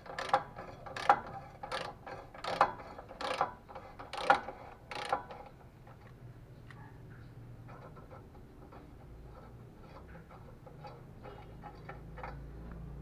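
Ratchet wrench clicking as it undoes the exhaust pipe bolts: a loud click on each back-swing, about one every 0.7 s for the first five seconds, then softer, irregular clicking.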